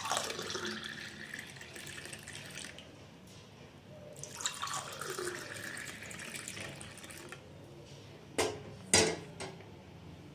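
Spiced buttermilk poured into a glass in two pours of about three seconds each, then two sharp knocks near the end.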